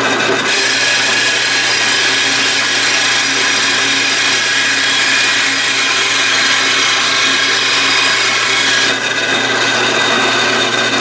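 Power-driven hole saw running and cutting through a wooden board for a toy wheel, a steady motor hum under loud cutting noise. The cut is placed so the saw's edge breaks out past the board's edge, letting the sawdust escape, so it cuts fast with little heat. The cutting noise eases about nine seconds in and the tool stops at the very end.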